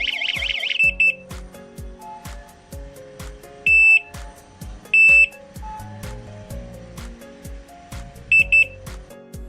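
Electronic alarm siren warbling rapidly up and down, cutting off under a second in. It is followed by a quick double beep, two longer single beeps about a second apart, and another double beep near the end, with background music throughout.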